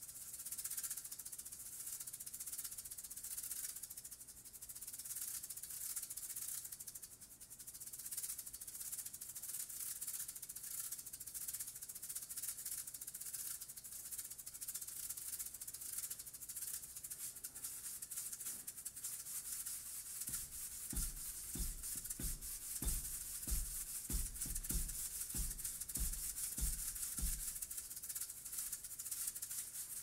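A pair of maracas shaken in a steady, fast rhythm, played solo. About two-thirds of the way through, a run of short, deep notes joins them, two to three a second, for several seconds.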